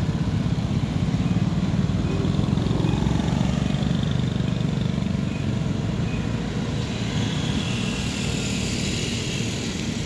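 Steady low rumble of a running motor vehicle engine with road noise.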